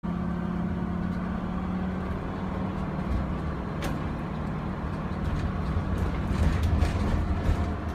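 Tiffin gas motorhome on a Ford V10 chassis driving, heard from inside the cab: a steady engine hum with low road rumble, growing a little louder near the end.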